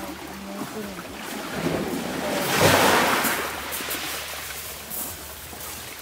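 A sea wave breaking on a shingle beach, the surf swelling to a peak about halfway through and then fading away.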